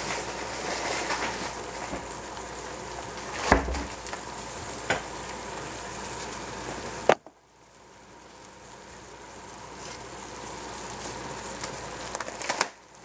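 Baby cabbage (xiao bai cai) sizzling as it fries in oil in a stainless steel pot, with a few light clicks. About seven seconds in comes a sharp click, after which the sizzle drops almost away and slowly builds again.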